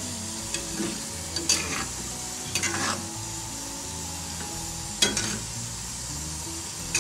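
A spatula stirring and scraping chicken curry through a pan over a steady sizzle from the simmering gravy. The scraping strokes come in short clusters, the loudest about five seconds in.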